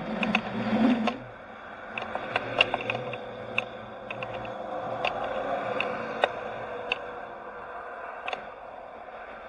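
Driving noise picked up by a camera mounted above a moving vehicle's roof: a louder rush in the first second, then steady road noise with sharp clicks scattered through, about a dozen in all.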